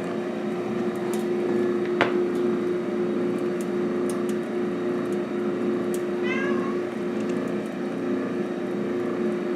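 A cat meows once, briefly, about six seconds in, over a steady low machine hum, with a single sharp click about two seconds in.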